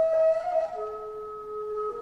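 Daegeum, the large Korean bamboo transverse flute, playing long held notes in a concerto with a traditional Korean ensemble. A higher note wavers briefly, then gives way about a second in to a lower held note, which steps down again near the end.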